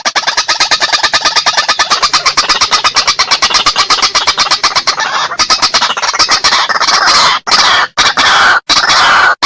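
White-breasted waterhen (ruak-ruak) calling: a fast run of pulsed notes at about ten a second, turning into harsher, louder calls with falling sweeps over the last three seconds.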